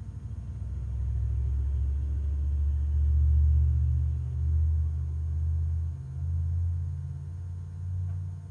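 Go Power IC3000 inverter charger giving off a low hum that builds about a second in, wavers in strength and dies down near the end. This is the annoying periodic noise that the unit makes about every 40 seconds.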